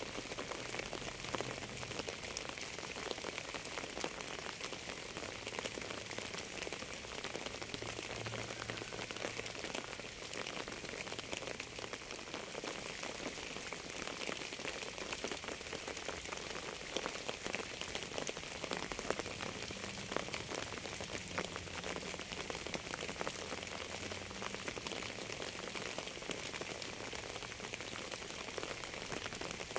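Steady rain falling on a surface, a dense patter of individual drops over an even hiss.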